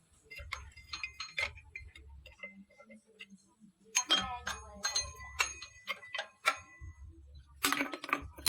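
Metal tools and engine parts clinking and tapping against each other as they are handled, with short ringing tones after some of the knocks; the busiest clatter comes about four seconds in and again near the end.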